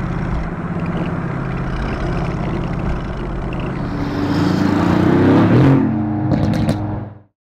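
Mercedes-AMG GT's twin-turbo V8 engine running, swelling and rising in pitch about four seconds in as it is revved, with a few sharp crackles near the end before the sound stops abruptly.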